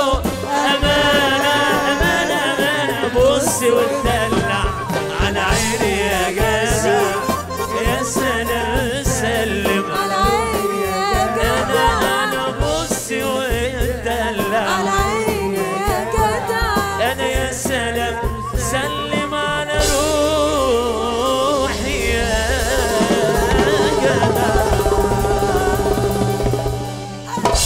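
Live Arabic popular music: a male voice singing an ornamented, wavering melody over a darbuka and band with a steady dance beat. The music dies away near the end.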